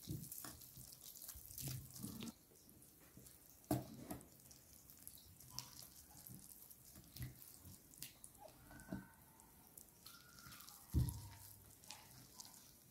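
Faint, intermittent wet squishing and light knocks of hands mixing flour into a wet yeast dough in a bowl.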